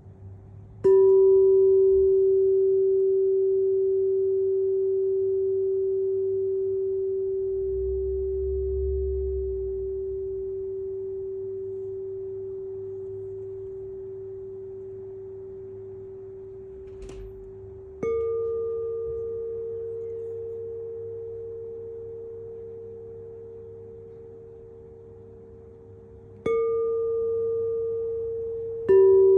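Tuning forks struck one at a time, each ringing a long, pure, slowly fading tone. A lower fork sounds about a second in, a higher one about two-thirds of the way through and again later, and the lower one is struck again near the end, so the two pitches overlap.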